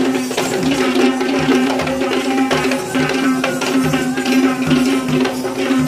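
Procession drumming: many quick drum strokes over a steady held tone, with no break.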